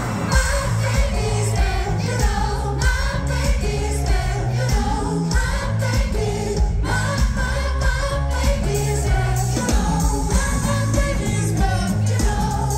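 Live pop band playing with bass guitar and a steady beat, with singing over it.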